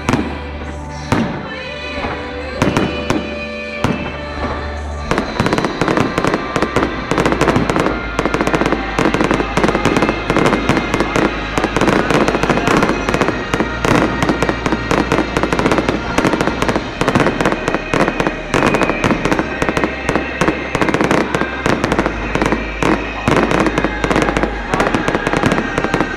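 Fireworks display with music playing: a few separate bangs for the first five seconds, then from about five seconds in a dense, unbroken barrage of bangs and crackling over the music.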